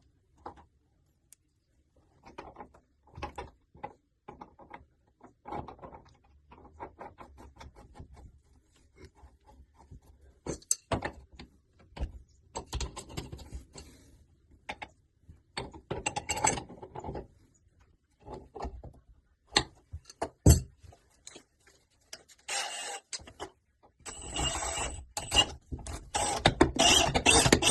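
Metal hand tool scraping and clicking against the brass valve seat inside a tap body as the seat is reseated. The strokes come in short bursts and grow louder and busier near the end, with one sharp knock shortly before.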